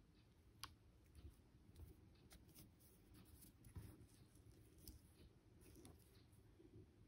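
Near silence with a few faint, scattered light clicks from fingers handling small coquina shells glued on a metal ring.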